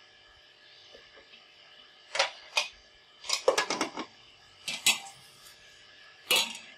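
Empty aluminium frying pan clattering against the gas stove's iron grate as it is shifted on the burner: a few irregular knocks, with a quick rattling run of them in the middle.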